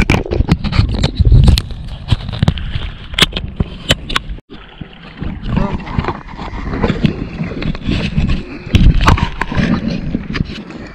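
Many sharp knocks and clatter over a gusting low rumble of wind on the microphone, with a sudden cut-out about four and a half seconds in.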